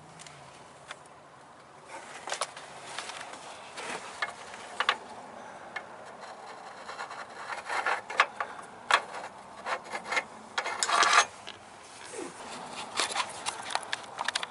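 Scattered metallic clicks and clinks of a clutch pulley tool and hand tools being worked loose from an alternator clutch pulley, coming thicker past the middle.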